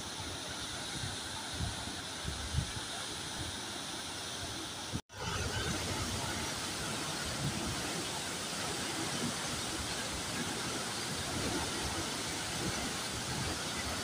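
Tall waterfall plunging down a rock face, a steady rushing of falling water and spray. The sound breaks off for an instant about five seconds in, where the recording is cut.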